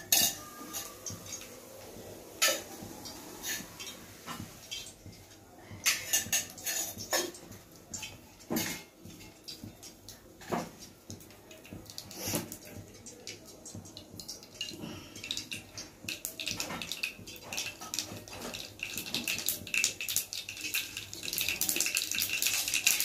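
Cumin seeds frying in hot oil in a small pan: sparse crackles and a few sharp clicks at first, turning into a dense, steady sizzle and crackle over the second half.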